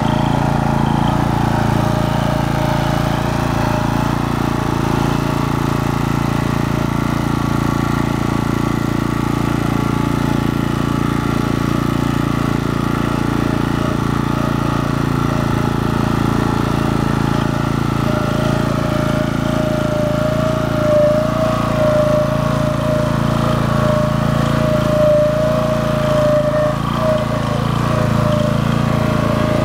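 Walk-behind tractor engine running steadily under load as the tractor drives a power barrow heavily loaded with wet composted manure.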